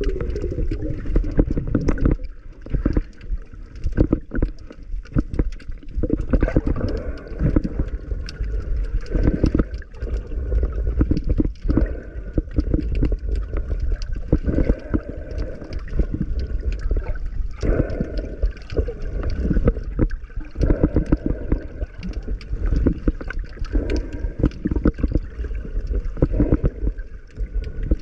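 Muffled churning and gurgling of sea water around a camera, with many small knocks and clicks throughout.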